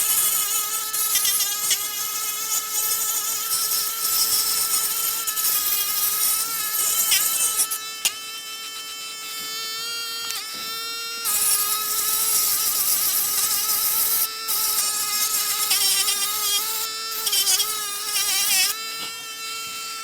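Mini electric rotary polishing machine whining steadily as its abrasive bit sands hardened body-filler putty, with a gritty high hiss from the abrasion. The pitch sags and wavers as the bit is pressed into the work, and there are brief breaks around the middle and near the end.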